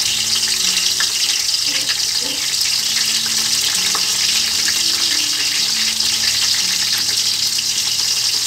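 Sliced onions frying in hot oil in a large pot: a steady, even sizzle.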